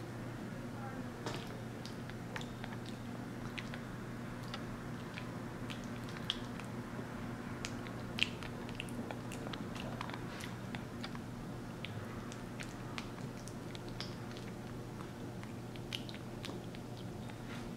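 Capuchin monkey chewing an overripe, mushy banana close up: irregular wet mouth smacks and clicks, over a steady low hum.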